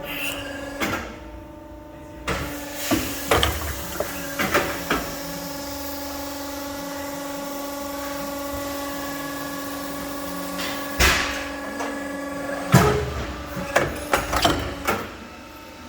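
SOCO SB63 Auto CNC pipe bender running with a steady machine hum, broken by sharp metallic clunks and knocks in two clusters, a few seconds in and again near the end, with a single knock in between.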